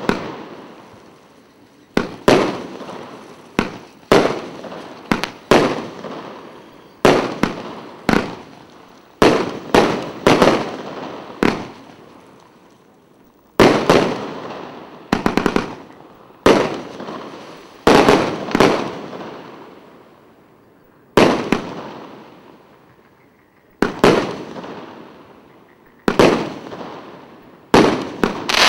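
A 114-shot category 3 fireworks cake with 25 and 30 mm tubes firing shot after shot. Sharp bangs come about once a second, sometimes two or three in quick succession, with gaps of up to two seconds. Each bang trails off over about a second.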